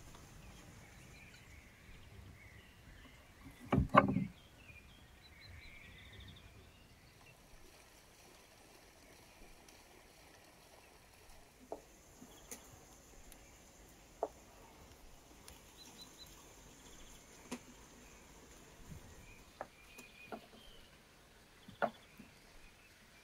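Faint birds chirping over quiet outdoor ambience, with one loud dull thump about four seconds in. Later a chef's knife cuts vegetables on a wooden cutting board, sounding as single sharp knocks a second or more apart.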